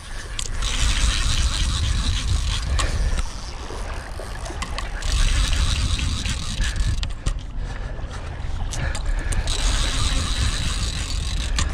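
Fishing reel clicking and whirring under heavy load as a big sturgeon is played on a tight drag, over a steady low rumble.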